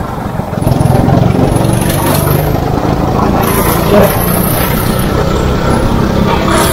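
Go-kart's small engine running steadily under way, heard from the driver's seat, with one brief sharp knock about four seconds in.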